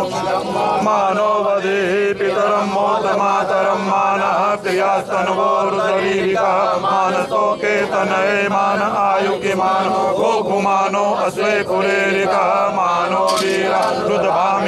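Several men chanting Sanskrit mantras together in a continuous, unbroken recitation.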